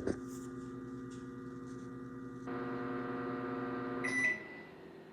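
Microwave oven running with a steady hum that gets a little louder about halfway, then a short high beep just after four seconds as it is stopped, and the hum cuts off.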